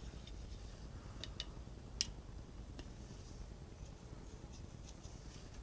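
A few faint clicks and light metallic taps as cutting oil is dabbed onto a steel plate under a drill bit, the clearest about two seconds in, over a low steady hum.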